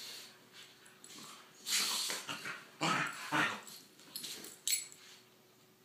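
Two dogs, a Bernese Mountain Dog and a smaller dog, play-wrestling, with huffing breaths and small play noises. The sounds come in bursts, loudest about two and three seconds in.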